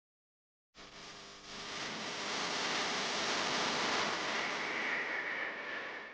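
Wind rushing over an action camera's microphone on a moving gravel bike. It is a steady hiss that cuts in suddenly after about a second of dead silence.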